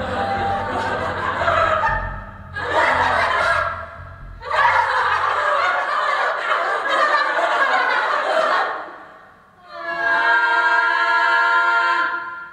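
A group of women's voices vocalizing together at a microphone without accompaniment: loud, ragged bursts of laughing, shouting voices, then a short quiet gap and one held sung note in unison near the end.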